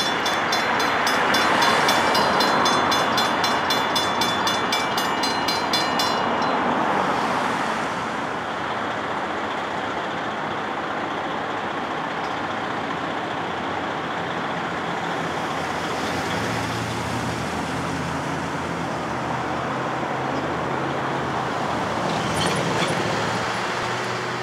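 Safetran mechanical crossing bells ringing rapidly, stopping about six seconds in, during a crossing malfunction. After that comes steady road traffic noise, with vehicle engines humming.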